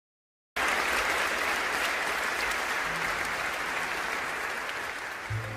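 Applause, starting abruptly about half a second in after a moment of dead silence. Soft music comes in near the end.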